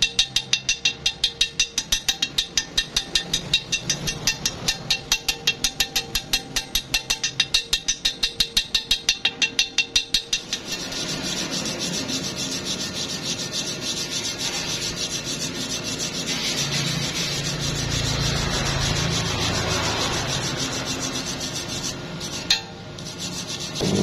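Steel bar rubbing and scraping against a welded steel collar: rapid rhythmic rasping strokes, about four or five a second, for the first ten seconds or so, then one continuous scrape. A brief sharp knock comes near the end.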